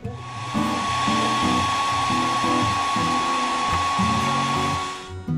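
Hair dryer blowing hot air over the iPad Air's glass to soften the screen adhesive: a steady rush of air with a thin steady whine, switched off about five seconds in.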